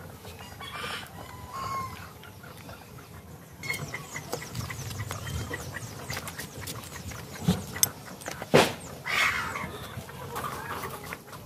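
A knife cutting up a dressed chicken on a wooden chopping block: many small cutting clicks, and a few sharp knocks of the blade on the block about two-thirds through. Live chickens cluck now and then.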